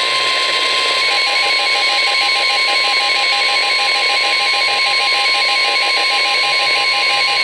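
NOAA Weather Radio warning alarm tone: a steady, loud single tone near 1 kHz over radio hiss. It signals that a warning message follows. About a second in, a second tone joins it, beeping rapidly on and off.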